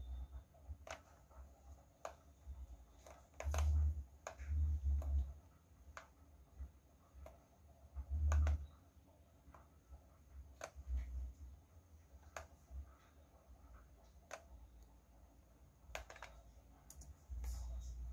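Scattered single computer clicks, about one a second, as wires are dragged into place in a circuit simulator, with a few dull low thumps, the loudest about a quarter and halfway through.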